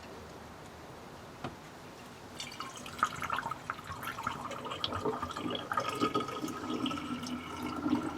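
Sloe berry cordial being poured into a glass bottle, the liquid running and filling with a pitched ring. It starts about two and a half seconds in.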